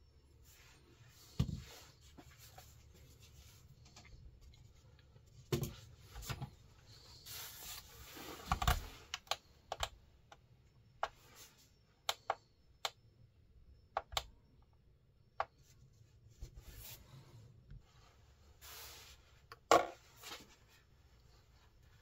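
Handling noise from a small folding knife with a brass handle and steel blade: scattered sharp clicks, taps and knocks as it is closed and set down on a stainless-steel kitchen scale and the scale is handled. The loudest knocks come about a second and a half in, around six and nine seconds in, and near the end.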